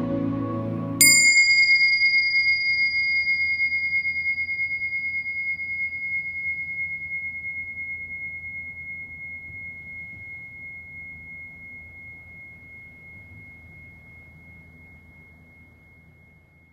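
Background music stops about a second in and one struck bell-like ding sounds. Its clear high ring fades slowly over the next fifteen seconds above a faint low hum.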